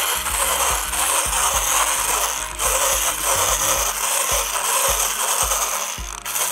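Hand blender running with its whisk attachment, beating cream into a mixture in a glass bowl. The motor stops briefly about two and a half seconds in, then runs again and stops near the end.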